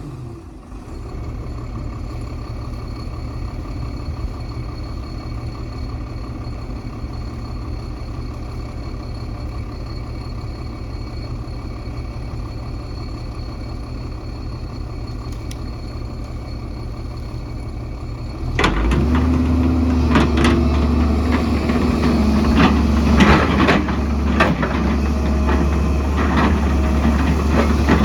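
A heavy earthmoving machine's diesel engine running steadily. About two-thirds of the way through it becomes louder and deeper, with repeated knocks and clanks of metal and rock.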